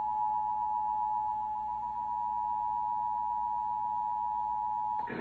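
Emergency Alert System attention signal: the steady two-tone alert (853 and 960 Hz sounded together) broadcast during a monthly EAS test. It cuts off about five seconds in, giving way to a rush of noisy static.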